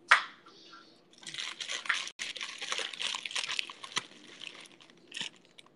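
A short sharp knock, then about three seconds of dense crinkling and crackling as something, most likely a plastic bag, is handled.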